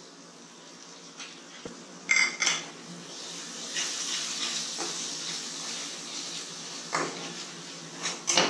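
Spatula stirring a thick frying masala in a metal kadai, scraping against the pan, with a few sharp knocks about two seconds in and near the end.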